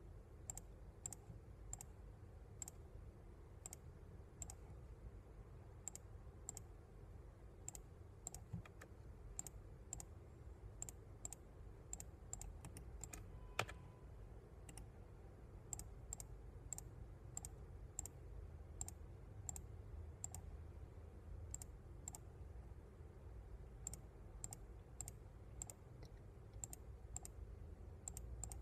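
Computer mouse buttons clicking faintly and irregularly, about one to three clicks a second, as stitch points are placed one by one while digitizing an embroidery design. About halfway through comes one louder click with a brief beep.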